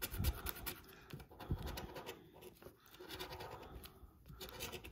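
A plastic scratcher tool scraping the latex coating off an instant lottery scratch-off ticket in quick, irregular strokes, with a couple of soft thumps in the first two seconds.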